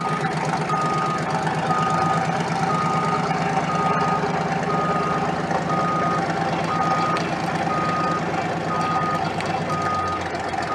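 A vehicle backup alarm beeps steadily at one pitch, about once a second, over an antique aerial-ladder fire truck's engine running with a fast, even pulse.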